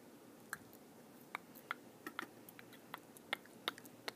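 Faint, irregular light clicks and taps of small hard plastic toy figures being handled and set down in a plastic playset bed.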